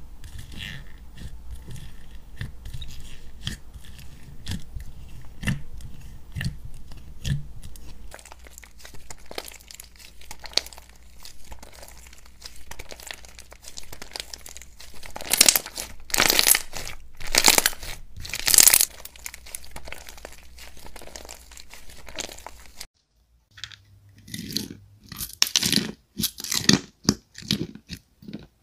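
Slime being worked by hand. First many small crunchy clicks as a fluffy slime packed with marshmallow and bead toppings is poked. Then loud crackly tearing as a thick white foam slime is stretched, and after a sudden cut near the end, short crackles and pops as a white fluffy slime is pressed in its tub.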